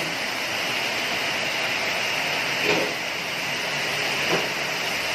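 Steady rushing noise of heavy rain and floodwater, with two brief louder surges about halfway through and a second and a half later.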